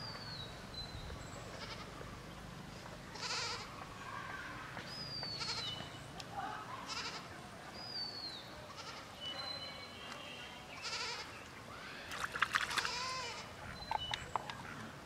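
Repeated animal calls, short and pitched, coming every second or two and loudest a little before the end.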